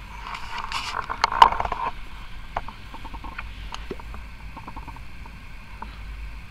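Freshly rebuilt clearomiser coil head crackling and hissing with sharp little pops as it fires for about two seconds, then faint scattered ticks.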